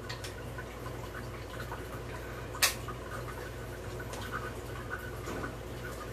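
Small clicks and taps of bicycle parts being handled and fitted, with one sharp click about two and a half seconds in, over a steady low hum.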